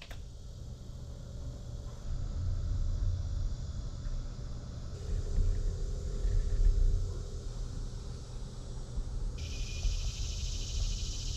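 Low rumble of wind buffeting the microphone outdoors. About nine seconds in, a high, dense insect buzz starts suddenly and runs for a few seconds.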